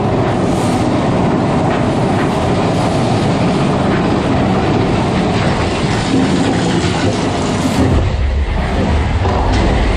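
Big Thunder Mountain Railroad mine-train coaster cars rattling and clattering along the track, heard from aboard a moving car. A heavier low rumble comes in about eight seconds in.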